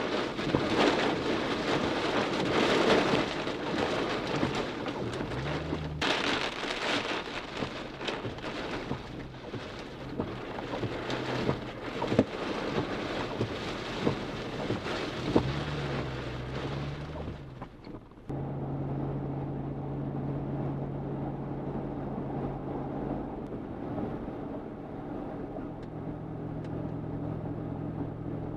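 Heavy rain pelting a car's windshield and roof over the hum of its engine. About two-thirds through, the rain stops and only the steady drone of the car driving on a dry road remains.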